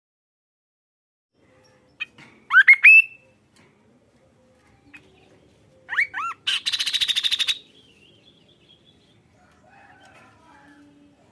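Kaso-kaso bird calling: three quick rising whistles about two and a half seconds in, then two more rising whistles followed at once by a fast harsh rattle of about a second, near six seconds in.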